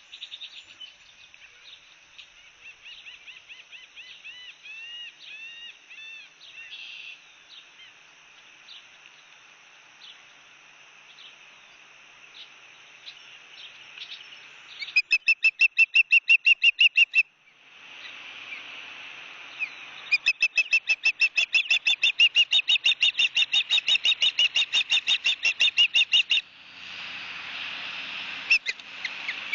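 Ospreys calling at the nest: scattered whistled chirps at first, then two long, loud series of rapid repeated calls, about nine a second, halfway through and again later.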